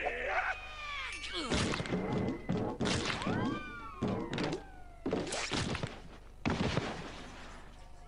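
Cartoon fight sound effects: about five bursts of thuds and whacks, with swooping pitch glides around them.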